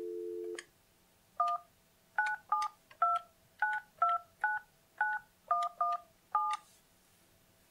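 Alcatel-Lucent 8018 desk phone keypad sounding touch-tone (DTMF) beeps as a number is keyed in: eleven short two-note beeps at an uneven pace. A steady tone from the phone cuts off about half a second in.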